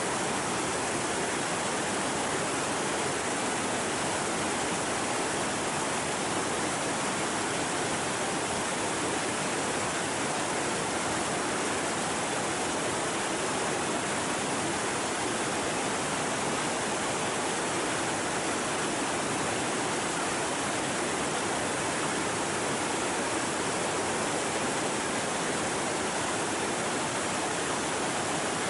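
Shallow mountain river running fast over rocks and riffles: a steady, unbroken rush of water.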